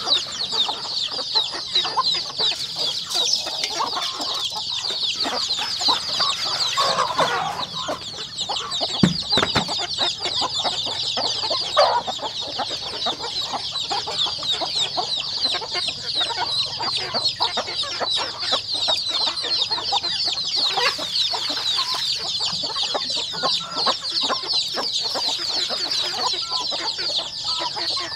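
Chickens calling continuously, many high, rapid peeps overlapping into a steady chorus, with a few lower calls about seven and twelve seconds in and a dull thump about nine seconds in.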